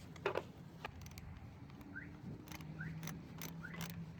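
Faint, scattered metallic clicks and scrapes of a wrench tightening the negative terminal clamp onto a car battery post.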